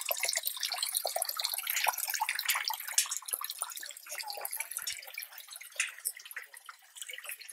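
Water from a small garden fountain splashing and trickling into a tiled basin, a quick patter of drops that grows fainter in the second half.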